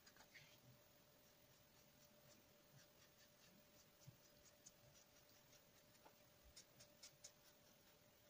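Faint scratching of a felt-tip marker drawing short strokes on paper, the strokes coming in small quick clusters, most clearly a little over six seconds in. A faint steady hum sits underneath.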